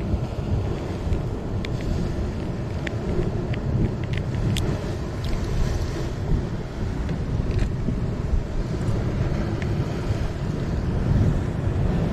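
Wind buffeting the microphone over the wash of the sea against the rocks, a steady rumbling noise, with a few faint clicks scattered through it.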